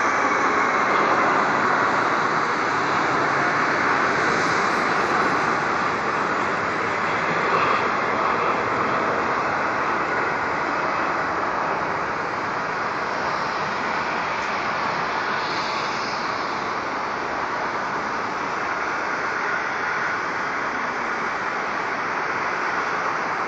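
Boeing 787-8 Dreamliner's jet engines at takeoff thrust as it climbs away: a loud, steady rush of engine noise that slowly fades as the aircraft recedes.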